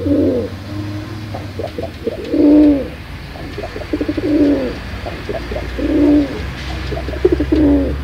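Domestic pigeon cooing over and over, about five phrases in all. Each phrase is a quick run of short stuttering notes that ends in a longer, drawn-out coo.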